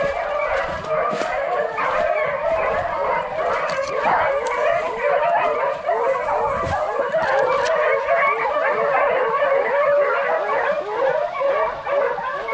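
A pack of rabbit beagles baying together on a rabbit's track, many voices overlapping in a continuous chorus of howls and yelps.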